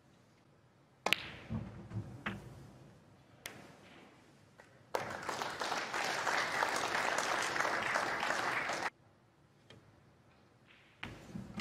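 Snooker balls clicking, a sharp knock about a second in and a few lighter clicks after it, then about four seconds of audience applause that cuts off abruptly.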